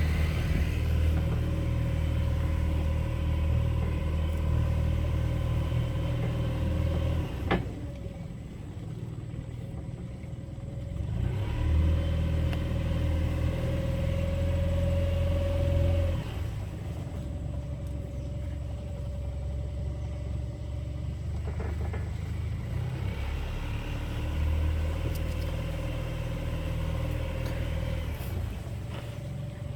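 A tour boat's motor runs steadily, now louder, now eased back: strong for the first several seconds and again for a few seconds about halfway through, quieter in between and afterwards. A single sharp click comes about seven seconds in.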